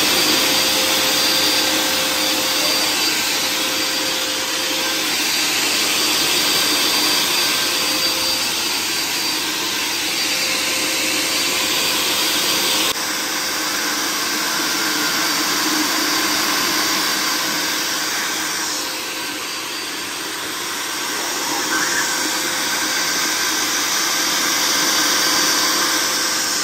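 Electric LED confetti blower machine running, its fan motor giving a steady rush of air with a thin high whine; it eases slightly about twenty seconds in, then picks up again.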